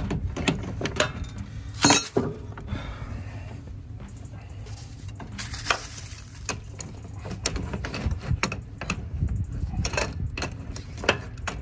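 Hand wrench clicking and clinking against a nut and the steel bracket of a mower deck's chute-blocker cable mount as it is loosened, in irregular metal taps with a sharper knock about two seconds in.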